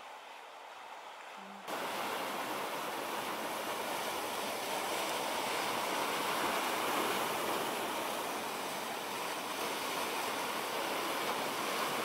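A faint hiss, then a sudden switch about two seconds in to a louder, steady rush of sea surf.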